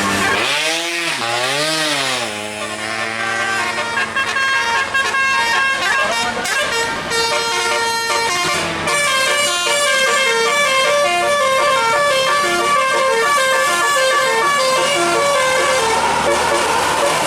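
A bus's telolet musical air horn: two rising-and-falling swoops, then a quick melody of short notes stepping up and down in pitch.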